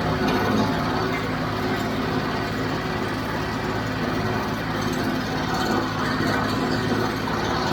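John Deere tractor's diesel engine running steadily under load, driving a John Deere 348 square baler whose mechanism clatters along with it.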